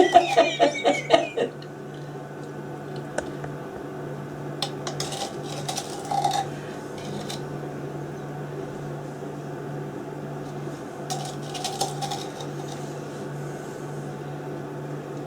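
A metal spoon scraping and tapping lightly against a bowl and ceramic ramekins as runny meringue mixture is spooned out, a few scattered clinks over a steady low hum.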